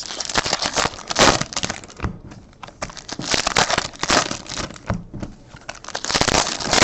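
Trading-card pack wrappers crinkling and crackling as packs of 2015 Topps Chrome football are handled and opened, in irregular bursts that swell and fade.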